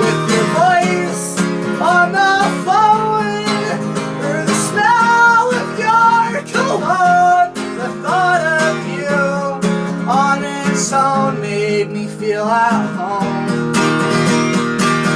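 Live acoustic guitar being strummed under a sung melody. The singing stops about 13 seconds in while the strumming carries on.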